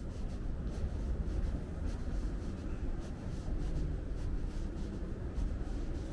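Walking ambience: a steady low rumble with light footsteps about twice a second.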